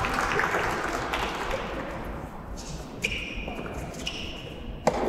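Soft tennis rally: the hollow rubber ball is struck by a racket about three seconds in with a ringing ping, then hit back with a sharper crack near the end.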